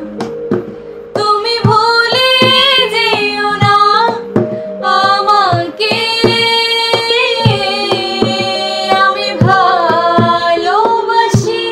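Two women singing a Bengali love song together in long, wavering held notes over a backing track with a steady drum beat.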